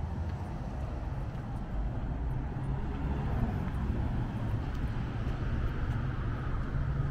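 Street traffic: a steady low rumble of vehicle engines and tyres on the road, with a higher tyre hiss building slightly toward the end.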